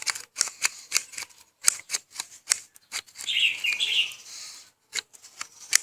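Spoon stirring thickening slime of glue and Omo laundry detergent in a bowl: irregular clicks and scrapes of the spoon against the bowl, about two or three a second, with a brief high squeaky sound about three seconds in.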